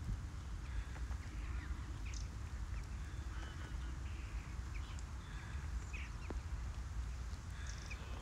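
Birds calling outdoors in short, scattered calls over a low steady rumble.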